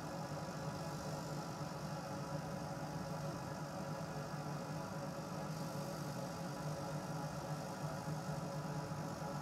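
A homemade CO2 laser cutter running a cutting job: a steady mechanical hum from the gantry's motors moving the laser head and from the fume extractor.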